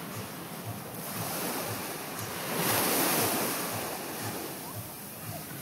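Wind buffeting the microphone over the steady wash of surf on a beach, swelling into a louder rush about halfway through.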